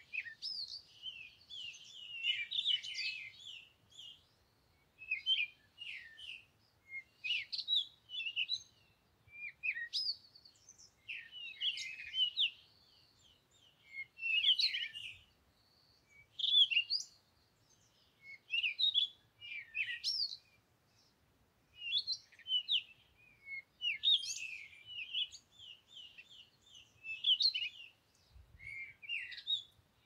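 Small garden songbirds chirping and calling in short, busy bouts that come every second or two, with brief pauses between them.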